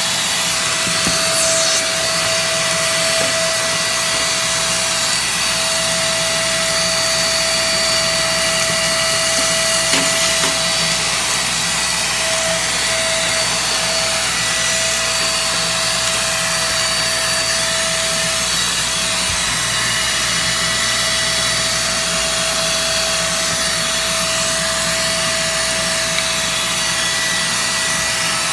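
An electric motor runs steadily with a constant whine over a whooshing hiss, then begins to wind down, its whine falling in pitch, at the very end.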